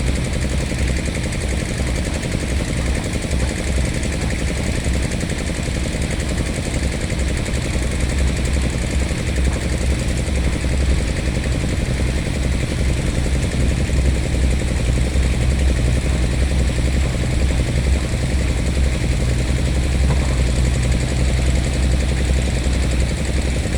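Volvo 140 excavator's diesel engine running steadily, a low, even drone.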